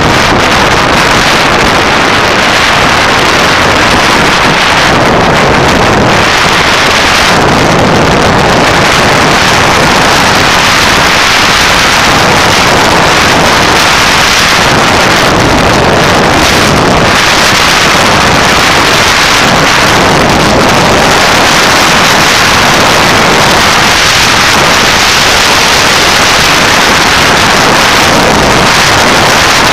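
Loud, steady wind rush over the microphone of a moving motorcycle, with the engine and tyre noise blended underneath.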